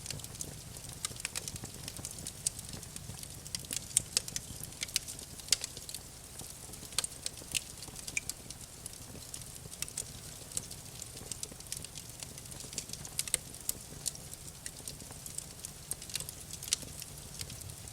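Wood fire crackling, with many irregular sharp pops and snaps over a soft low rumble of the flames.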